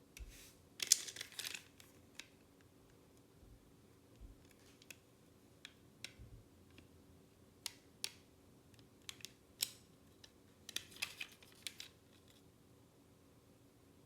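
Plastic toy train parts and packaging being handled: scattered clicks and taps, with two brief rustling bursts, one about a second in and one near the end.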